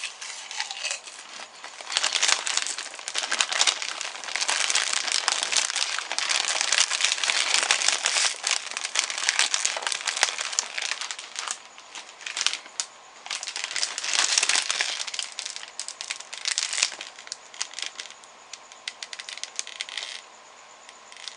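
Crinkly chip bag being handled, rustling in long bouts with short pauses.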